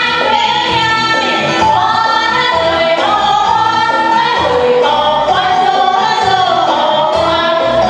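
Two women singing a song into microphones over accompanying music with a steady beat, amplified in a large hall.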